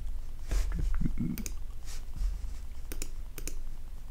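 Computer mouse clicking, about five separate clicks spaced irregularly.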